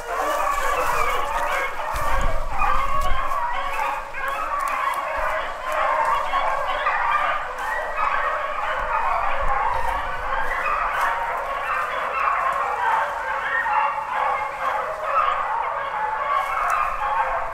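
A pack of beagles baying continuously, many voices overlapping in a steady chorus. This is the pack in full cry while running a rabbit on its scent trail.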